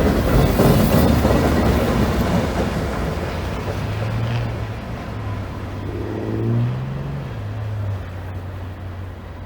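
Loaded freight train passing and moving away, its rumble fading steadily, with a low diesel engine drone underneath that briefly rises in pitch about six seconds in.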